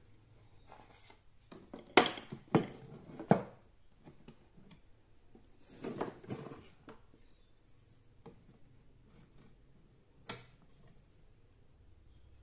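PVC pipe pieces and tools being handled on a workbench: three sharp hard knocks about two seconds in, a short scraping rub around six seconds, and one more knock near ten seconds.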